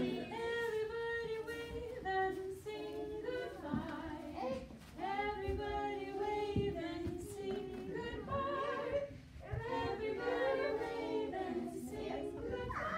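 A group of women and young children singing a song together, unaccompanied.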